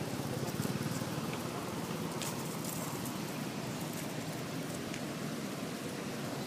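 Steady outdoor background noise with a few faint clicks and rustles.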